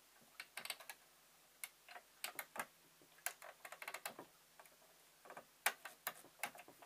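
Small, irregular clicks and taps of fingers and metal parts at a sewing machine's needle clamp, fitting and threading a new needle, sometimes in quick clusters.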